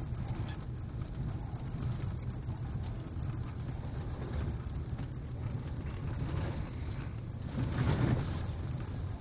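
Car cabin road noise: engine and tyres rumbling steadily over a wet, rutted mud-and-slush road. About eight seconds in, a louder whoosh of slush and water splashing up against the car.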